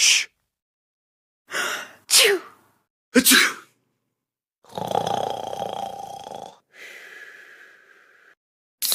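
A string of short, separate sound-effect clips, each cut off into dead silence: about six bursts, one with a falling glide and a longer noisy one of about two seconds near the middle, one of them sneeze-like.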